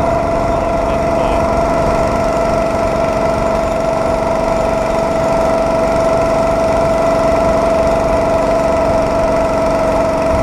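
Small engine of a homemade motorized rail cart running at a steady speed as the cart rolls along the track: an unbroken drone with a constant high tone over it.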